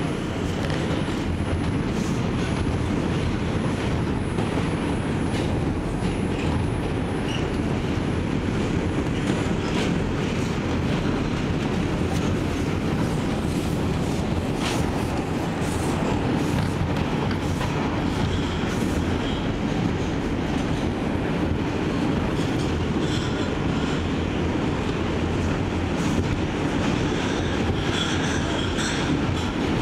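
Inside an R142 subway car running along the track: a steady rumble of wheels on rail, with occasional sharp clicks and brief faint high squeals in the later part.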